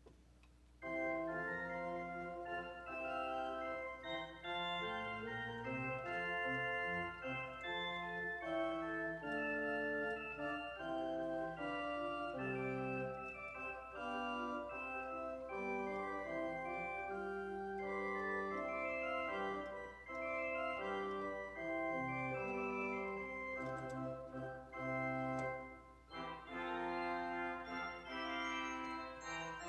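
Church organ playing a slow piece in sustained, held chords, coming in about a second in, with a brief lull a few seconds before the end.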